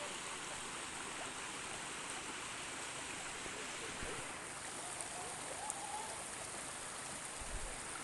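Shallow stream running over rocks: a steady rush and trickle of water.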